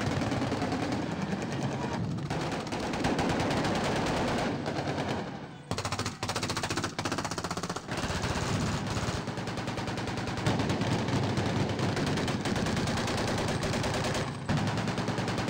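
Sustained automatic gunfire: many rapid shots from several weapons, nearly continuous, with a brief lull about five and a half seconds in.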